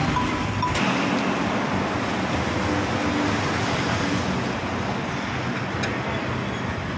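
Steady road traffic noise: a vehicle swells past about a second in and fades after a few seconds. A single light clink, a ladle against a bowl, comes about six seconds in.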